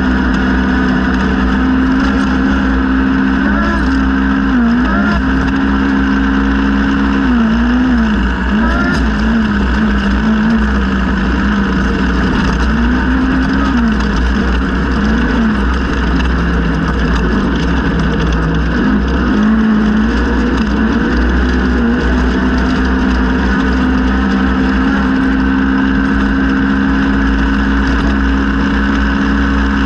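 Polaris RZR XP 1000 UTV's naturally aspirated 1000 cc parallel-twin engine running hard at high revs. Its note holds high, dips and climbs back in pitch several times through the middle, then settles high and steady for the last several seconds.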